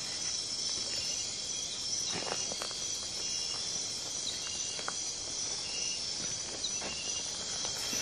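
Steady, high-pitched night-time insect chorus in tropical rainforest, with a few faint taps or rustles here and there.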